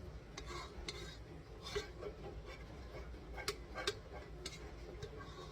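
A cooking utensil knocking and scraping against a pot and baking dish, several separate sharp taps and clicks, as thick macaroni and cheese is scooped out.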